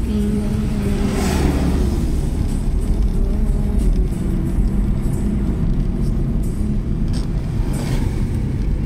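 A road vehicle running: a steady low rumble throughout.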